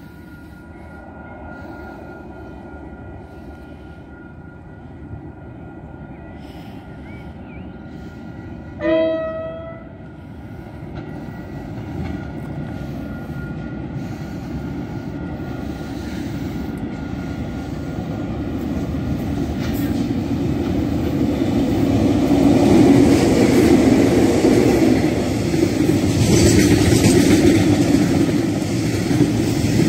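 KiwiRail freight train approaching and passing close by. There is a single short horn blast about a third of the way in. The locomotive and wagon rumble then grows steadily louder until the wagons roll past with wheels clattering on the rails.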